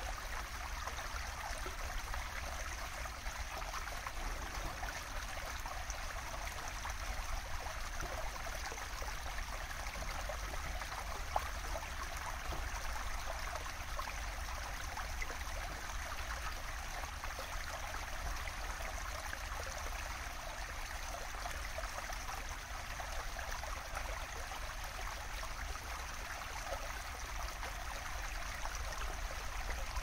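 Small stream running steadily over a low ledge in its bed, the water splashing where it breaks white, a continuous rushing sound.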